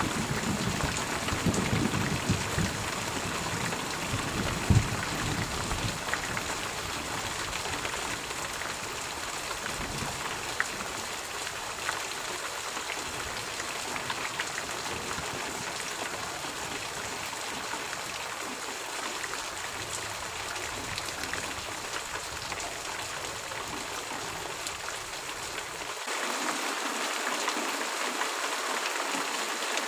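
Steady rain hissing, with a low rumble of thunder dying away in the first few seconds. About 26 seconds in, the sound changes abruptly to a brighter, thinner hiss with no low end.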